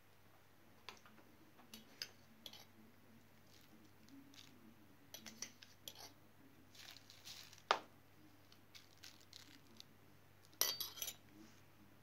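Faint scattered clicks and clinks of a metal knife and spoon against a glass jar and bowls while raw meat is handled, with one sharper clink about two-thirds in and a short rattle near the end.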